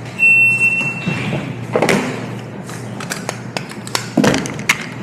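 Shot timer start beep, a steady high tone about a second long, then several sharp cracks from a gas blowback airsoft pistol firing a course of fire.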